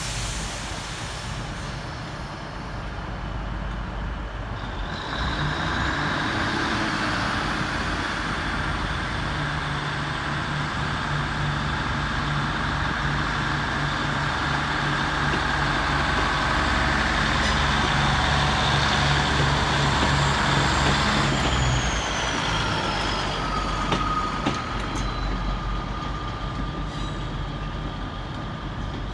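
Class 150 Sprinter diesel multiple units pulling away and passing close by, their underfloor Cummins diesel engines working under power and rising in loudness a few seconds in. A high thin whine runs over the engines and falls in pitch after the last carriages go past, leaving a fainter steady tone.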